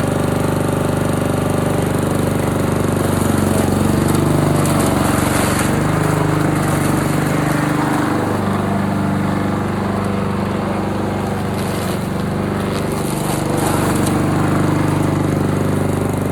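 Honda HRR walk-behind lawn mower's small engine running steadily under load while it shreds leaves and small branches; the gritty cutting noise thickens a few seconds in.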